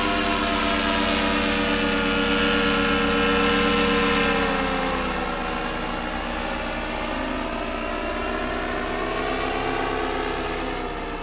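Backpack paramotor engine and propeller running in flight overhead. The pitch slides down slightly as it passes, and it is loudest about three to four seconds in, then fades a little.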